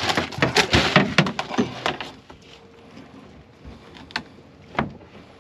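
A quick flurry of hard knocks and clatters over the first two seconds, then a couple of single knocks, as of things bumping against a boat's hull or deck.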